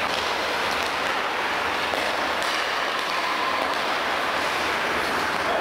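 Steady rushing background noise of an indoor ice rink during hockey practice, with a few faint clicks from sticks and pucks on the ice.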